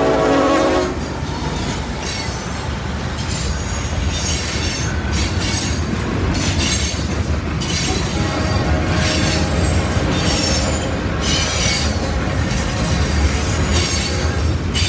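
Norfolk Southern freight train passing close by. The lead locomotive's air horn cuts off about a second in, then the freight cars roll past with a steady low rumble and wheel squeal that comes and goes.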